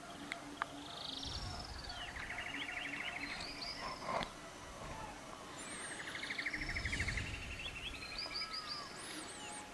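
Songbird singing: two phrases, each a rapid trill with high arching whistled notes, over a faint low pulsing tone.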